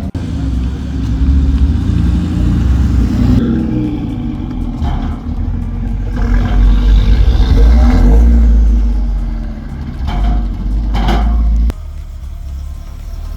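Car engine running with the revs rising and falling, the sound dropping away abruptly near the end.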